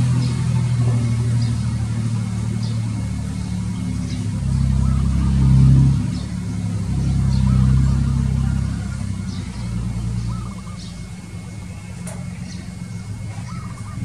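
Low engine rumble of a motor vehicle, swelling twice in the middle and dying down in the last few seconds. Faint short high chirps of small birds sound here and there over it.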